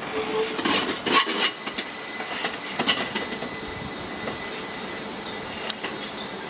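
Train moving through the station, its wheels squealing on the rails as thin, steady high tones. A few loud clatters come in the first three seconds.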